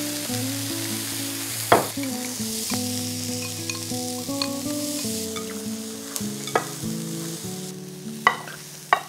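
Meat-stuffed chili peppers sizzling in hot oil in a pan just after soy sauce is poured in, with stirring and a few sharp knocks of a utensil against the pan.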